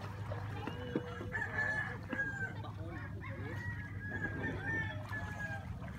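A rooster crowing, over a steady low hum.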